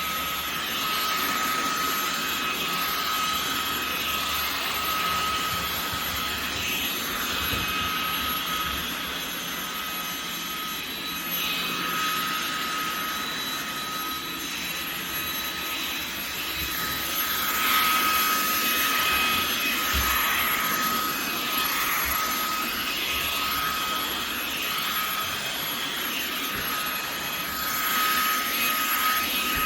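Fanttik Slim V8 Apex cordless handheld vacuum running steadily: a high motor whine over rushing air.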